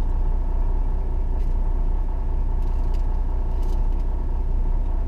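Volvo VNL 780 semi truck's diesel engine idling steadily, a constant low rumble heard from inside the cab. A few faint crinkles of a plastic food bag come through over it.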